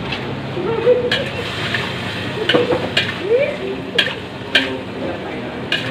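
A spatula stirring and scraping fried noodles (mie goreng) in a wok over a steady frying sizzle, with several sharp clacks as the spatula strikes the wok at irregular intervals.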